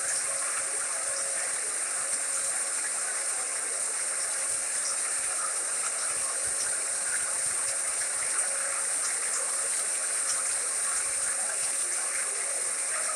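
White noise machine playing a steady, even hiss like running water, with a faint steady hum and a few small ticks.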